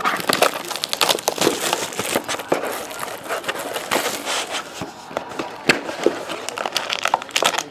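Trading card pack wrapper being torn open and crinkled by hand, a dense irregular crackling throughout.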